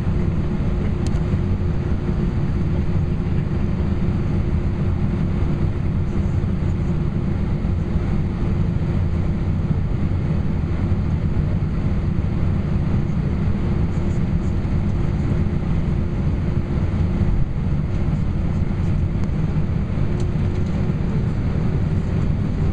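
Steady cabin rumble of an Airbus A320 with its jet engines at idle before the take-off roll, with a steady hum through it that edges up in pitch near the end.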